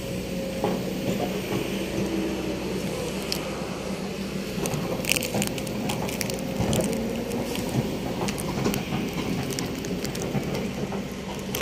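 Heavy diesel machinery engine running steadily at low speed, with scattered clicks and crackles over it.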